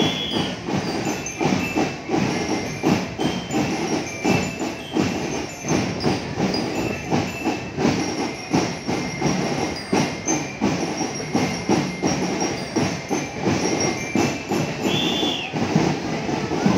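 School marching band's drums playing a steady marching beat, about two hits a second, with a short high whistle blast near the end.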